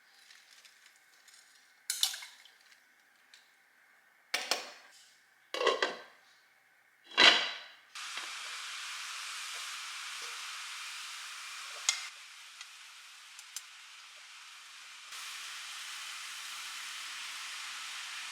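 Kitchen cooking sounds: four sharp clatters of pots, dishes or utensils, then a steady sizzle of food frying in a pan that grows louder about two-thirds of the way through.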